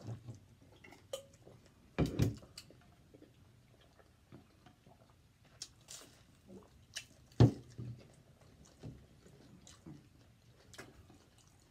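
Egg rolls being eaten fast: chewing and biting mouth sounds with scattered small clicks. Two sharp knocks stand out, the loudest about two seconds in and again about seven and a half seconds in.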